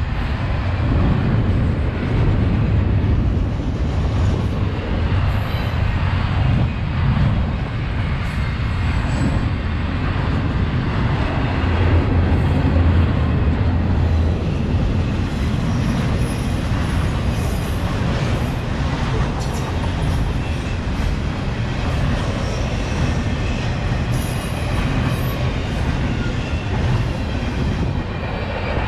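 Double-stack intermodal freight train's container cars rolling past, their wheels on the rails making a steady low rumble.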